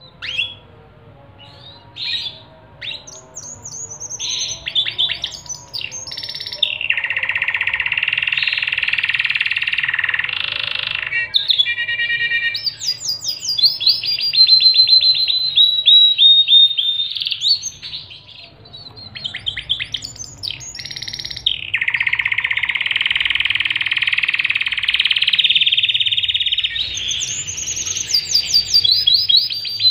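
Pied ('panda') domestic canary singing a long, varied song of rapid trills and rolling phrases. It starts softly, then swells, with two long sustained rolls about seven and twenty-two seconds in.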